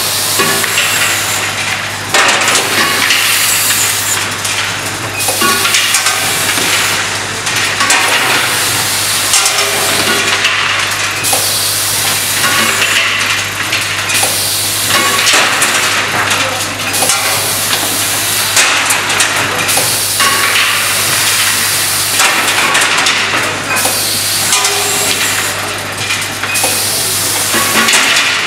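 Automatic cap-and-insert assembly machine running: a steady hum from its vibratory feeders under continuous clatter of parts and hissing. The sound swells and eases in a cycle of about two seconds.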